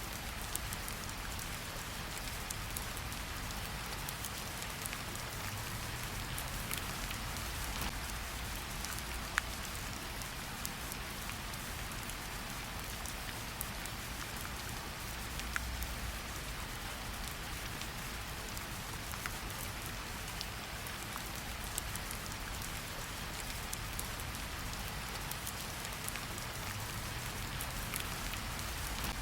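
Steady rain falling, a constant hiss with the occasional sharper tick of a single drop striking a surface.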